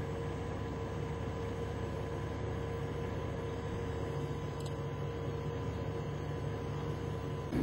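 Steady low hum of an idling vehicle, with a faint steady high whine over it that stops near the end.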